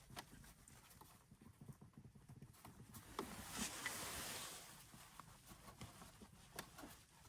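Faint knocks and taps, with a soft rubbing swell in the middle, as the Volkswagen Touareg's centre console is worked against the dashboard. The creak where the two meet does not sound: the dry lubricant has cured it.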